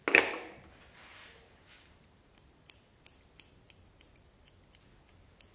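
Thinning shears snipping the hair on a Yorkshire Terrier's muzzle, short crisp snips about three a second, after one louder, sharp sound right at the start.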